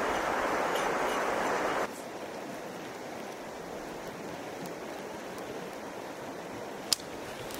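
Creek water rushing steadily, cutting abruptly to a quieter run of flowing water about two seconds in. A single sharp click near the end.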